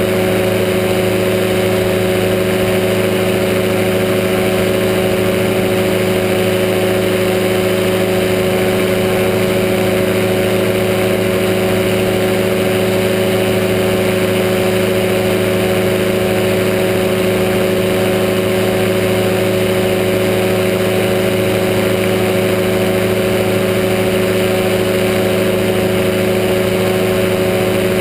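Powered parachute's engine and propeller running steadily at cruise power in flight, a loud, unchanging drone with no change in pitch.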